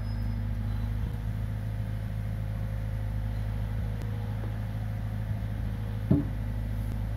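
Komatsu PC45 mini excavator's diesel engine running steadily as it lowers a slung concrete U-drain section into a trench. A single sharp knock about six seconds in as the concrete section bumps against the ground or the neighbouring sections.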